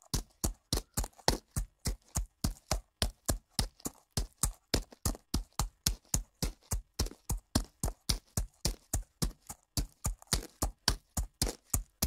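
Footsteps of a person walking fast on dirt ground: a quick, even run of steps, about three to four a second.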